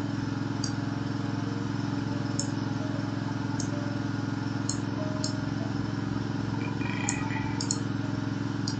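A steady low hum runs throughout, with about eight faint, short computer mouse clicks scattered through it as on-screen text boxes are selected and dragged.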